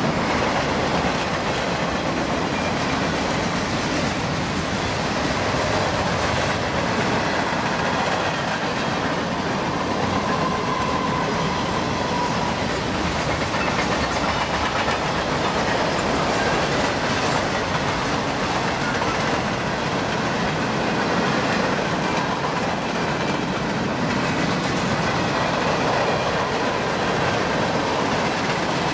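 Freight cars of a long general merchandise train rolling past: boxcars, tank cars and centerbeam flatcars. The wheel-on-rail noise is loud and steady.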